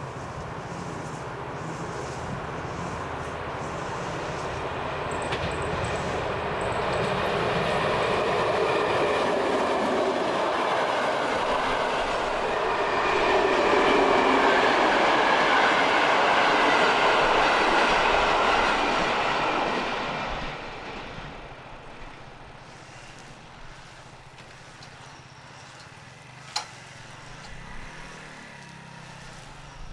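A train passing over a railway level crossing, its noise building up, staying loud through the middle and dropping away fairly suddenly about two-thirds of the way through. A single sharp click comes near the end.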